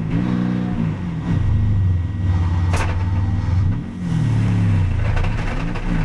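Mercedes-AMG GT4's twin-turbo V8, heard from inside the cockpit, running at part throttle around 2,500 to 3,000 rpm as the car moves off from standstill. The engine speed rises and falls several times. A brief sharp noise comes a little under three seconds in.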